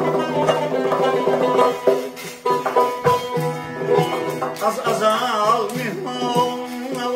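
Tar, a long-necked lute with a double-bowled, skin-topped body, plucked in a folk melody. About five seconds in a voice joins, singing wavering, ornamented notes.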